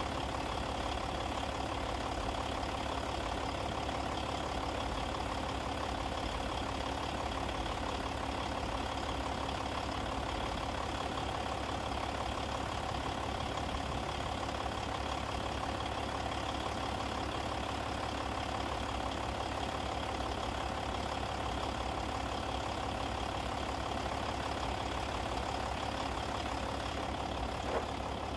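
An engine idling steadily, its even hum unchanging throughout, with one short click near the end.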